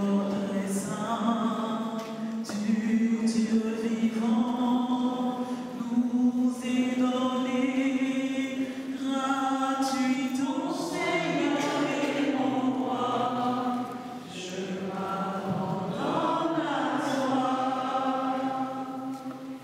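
A choir singing a slow hymn, holding long notes.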